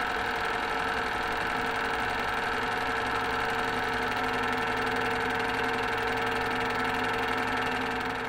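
Motion-picture film camera running: a steady mechanical whir with several held tones and a fast fine flutter.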